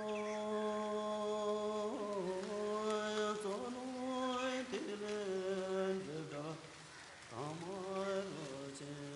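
Buddhist chanting: a single voice holding long, steady notes and stepping between a few pitches, each new syllable sliding briefly up into the note. There is a short break about seven seconds in.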